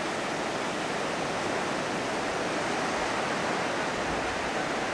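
Steady rush of ocean surf breaking and washing up a sandy beach.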